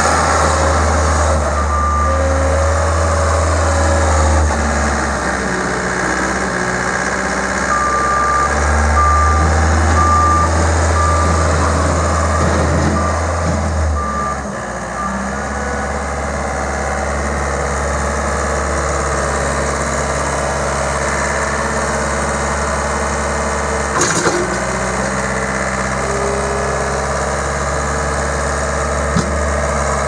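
A 2007 Komatsu SK1020-5N skid steer's Yanmar 3.3-litre four-cylinder diesel running, its note shifting several times as the machine is worked. A backup alarm beeps repeatedly for several seconds from about a quarter of the way in, and there is a single knock about two-thirds through.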